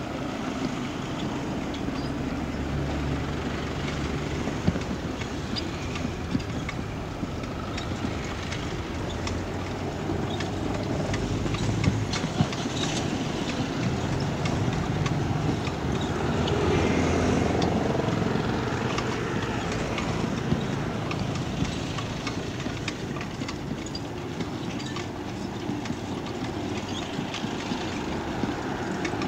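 Town street traffic heard from a moving bicycle: car, pickup and motorbike engines running close by as a steady rumble that swells twice, with scattered small clicks and rattles throughout.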